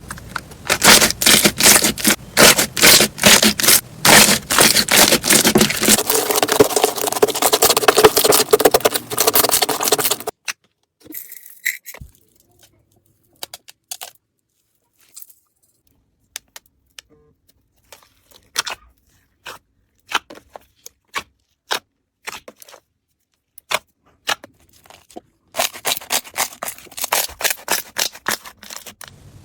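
Slime being squeezed and pressed by hand, crackling and popping. A dense run of crackles lasts about ten seconds, followed by sparse single pops and clicks, and dense crackling returns near the end.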